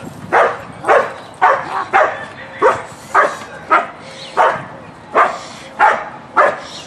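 Trained protection dog barking at a man in a bite suit, sharp barks in an even rhythm of about two a second: a bark and hold, keeping the person in place without biting.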